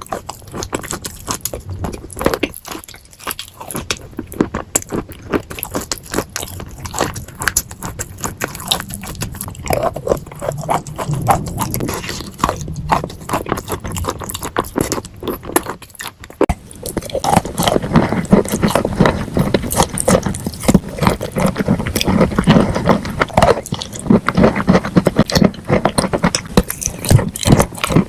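Close-miked chewing of crunchy food: dense, rapid crackling and crunching bites. It grows louder and fuller a little over halfway through.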